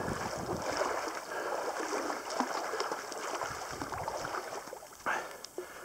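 A person wading through marsh water in waders, with steady sloshing and swishing of water that fades near the end.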